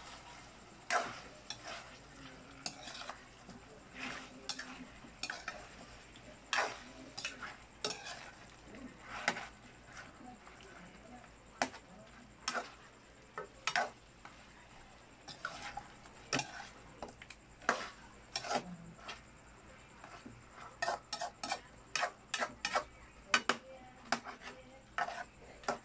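Spatula stirring and turning chicken pieces in a frying pan on a gas stove: irregular scrapes and clicks of the utensil against the pan, coming quicker near the end, over a faint sizzle as the chicken sears.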